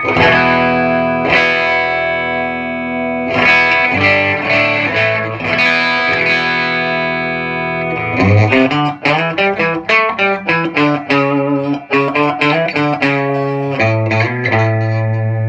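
Distorted electric guitar played through a cranked, cathode-biased 20–30 watt tube amp head and speaker cabinet, a sound test of the amp with its new preamp tube sockets. Ringing, sustained chords for about eight seconds, then fast, choppy chord riffing. The amp is loud enough to overpower the phone's microphone, which the uploader says makes this final test sound worse than the amp really does.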